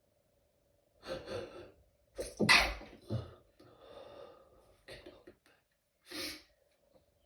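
A person's stifled sneezes during a sneezing fit: a gasping intake just after a second in, then the loudest, held-back sneeze, followed by softer breathy catches and a last short stifled burst near the end.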